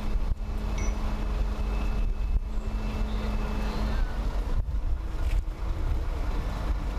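Mobile crane's engine running with a steady hum while the crane holds a suspended load, fading about four seconds in, under wind rumbling on the microphone.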